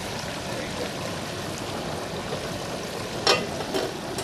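Whole turkey deep-frying in a pot of hot oil at about 320 °F: a steady hiss and sizzle of bubbling oil. A sharp metallic click about three seconds in, with a fainter one just after.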